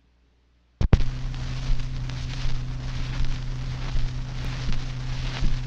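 Steady electrical hum with hiss and scattered crackles, like the noise floor of an old recording, starting with a sharp click about a second in; no music is heard yet.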